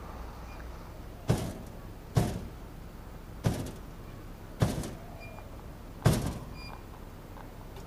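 Slow footsteps: five sharp thuds about a second apart, each dying away in a short echo.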